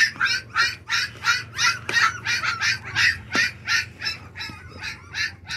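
Four-week-old American bully puppies crying in short, high-pitched squeals, about three or four a second: hungry puppies waiting to be fed.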